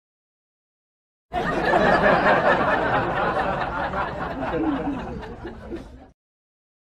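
A burst of laughter that starts suddenly about a second in, dies away over about five seconds and is cut off sharply, like an edited-in laugh effect.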